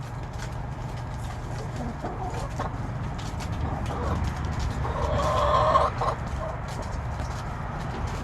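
Hens clucking as they peck at a hanging cabbage, with short sharp pecking taps throughout. A louder, drawn-out hen call comes about five seconds in.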